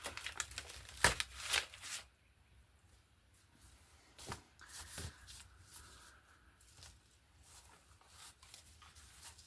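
Glued paper being picked and peeled off cardboard by hand: short scratchy tearing and crinkling. The sounds are louder for the first two seconds, then fainter and more scattered.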